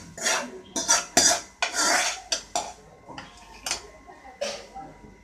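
A steel ladle scraping and clanking against a metal pan and a pressure cooker as cooked sambar is ladled from one into the other. There is a quick run of clinks and scrapes through the first two and a half seconds, then a few scattered knocks.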